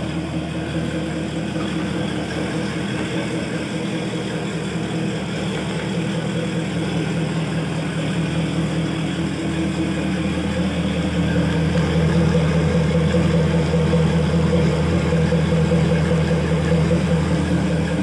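Mercury 250 hp outboard engine idling steadily out of the water, its telltale spitting a stream of cooling water, a sign that the water pump is working. It gets a little louder about two-thirds of the way through.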